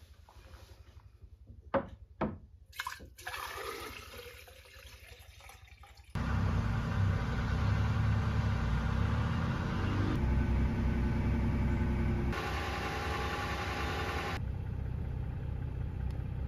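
A few light clicks and a short pour of water from a jug, then from about six seconds in the steady drone of a vehicle's engine and road noise heard from inside the cab. The drone shifts abruptly a few times.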